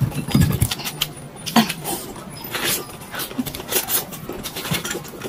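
Person eating a braised chicken drumstick, chewing and pulling the meat off by hand: a run of irregular small clicks, with a louder low burst about half a second in.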